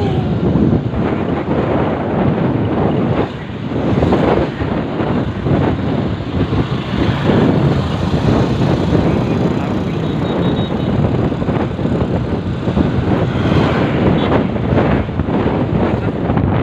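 Motorcycle being ridden at speed: heavy wind buffeting on the microphone over the bike's engine and road noise, loud and gusty.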